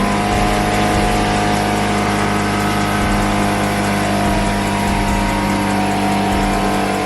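Infiniti Q50/Q60 twin-turbo V6 idling steadily through its AMS downpipes and MBRP exhaust, at an even pitch with no revving.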